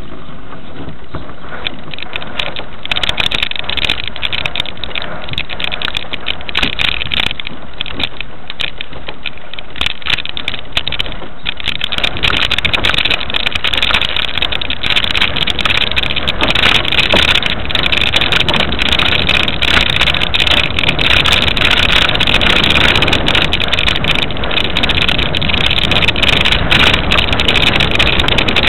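Quest velomobile rolling over a snow-covered road, heard from on board: a steady rolling noise of the tyres in snow with the body rattling in many small clicks, getting louder about twelve seconds in.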